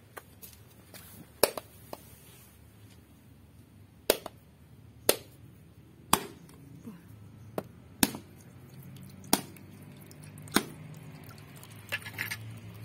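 Machete blade chopping into the shell of a husked kopyor coconut held in the hand: a series of sharp cracking strikes, the loudest about a second apart, with lighter taps between, cracking the shell open so the coconut water can be drained without splitting the nut in two.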